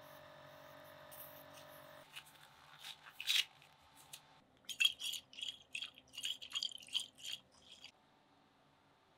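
A lab instrument's steady hum with a few tones, cut off about two seconds in. Then rubbery rustling and snapping of lab gloves being pulled on and worked over the hands, in quick bursts of two or three a second that stop near the end.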